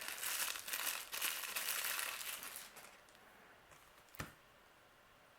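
Small plastic bag crinkling and rustling as a toy figure is pulled out of it, stopping under three seconds in. A single light tap follows about four seconds in.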